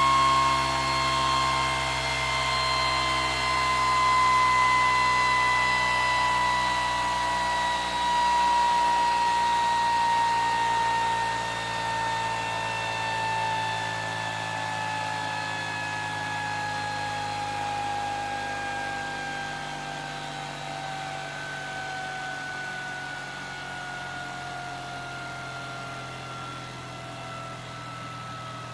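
Pulse motor with a magnet rotor whining as it winds down on the charge left in its super capacitors. The pitch falls slowly and steadily and the sound grows gradually quieter as the rotor loses speed.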